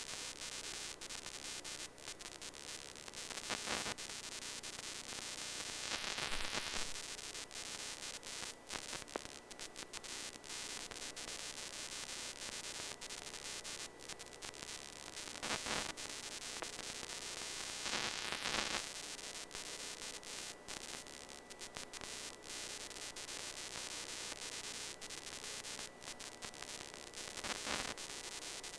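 Radio static on a NASA TV feed received over the air through an amateur television repeater. It is a steady hiss with frequent crackles and a few brief louder swells, about 4, 6, 16 and 18 seconds in.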